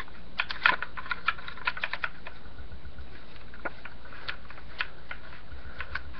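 Light, irregular clicks and taps of hard parts being handled as a muzzle-brake attachment is screwed onto the front of a paintball marker's barrel. The clicks come thickly in the first two seconds, then only now and then.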